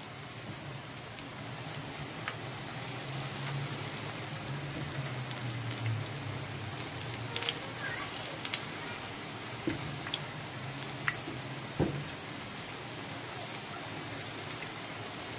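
Hot oil sizzling and crackling steadily as battered mixed-vegetable pakoras deep-fry in a pan. A single sharp knock about two-thirds of the way through.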